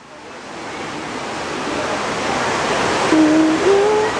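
Man-made waterfall splashing into a pool: a steady rush of falling water that grows louder. About three seconds in, a low hooting call starts and steps up in pitch a couple of times.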